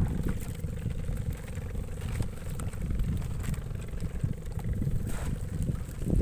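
Strong wind buffeting the microphone in uneven low rumbles, over a steady hum, with a short knock about five seconds in.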